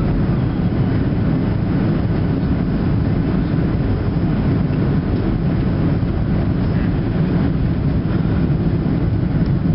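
Boeing 737-700 cabin noise on approach, heard inside the cabin: a steady low rumble of the CFM56 engines and rushing air.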